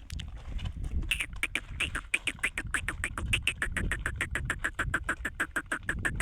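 A fast, regular run of short animal calls, about seven or eight a second, starting about a second in, like rapid quacking.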